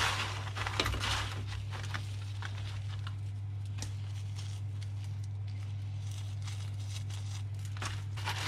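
Hands rummaging through salt-crusted squid in a metal roasting tin: scattered scratchy rustles and crunches of coarse salt, most in the first second or so, over a steady low hum.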